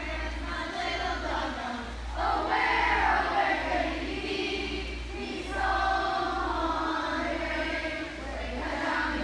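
A group of young voices singing together.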